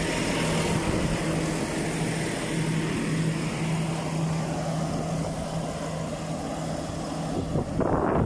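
Fendt tractor's diesel engine idling steadily, one constant low hum, with a brief rush of noise near the end.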